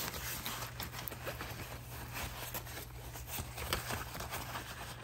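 Stroller-wagon canopy fabric rustling as hands handle and tuck it, with irregular small taps and clicks from the toggle loops.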